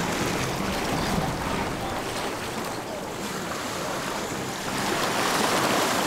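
Wind buffeting the microphone over small waves lapping and splashing against a rock jetty, a steady rush that gets a little louder near the end.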